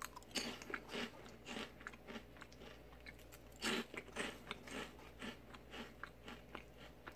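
Crisp Orion Oh Gamja potato snack sticks crunching: a string of irregular crackly crunches, the loudest a little past the middle.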